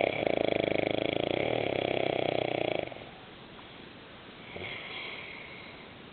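A man snoring loudly. One long snore with a fast rattle lasts about three seconds, and a second, softer snore comes a few seconds later.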